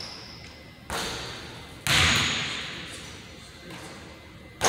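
A basketball hitting the hoop and bouncing on a hardwood gym floor: a lighter hit about a second in, then two loud ones, about two seconds in and near the end, each followed by a long echo through the hall.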